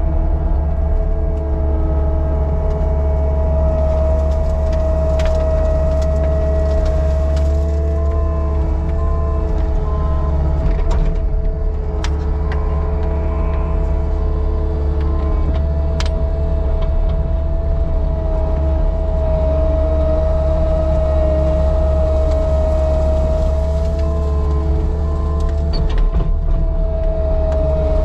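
Caterpillar 299D2 compact track loader's diesel engine running steadily at working speed with a steady whine over it, heard from inside the cab as the machine pushes into brush. A few sharp clicks stand out over the engine.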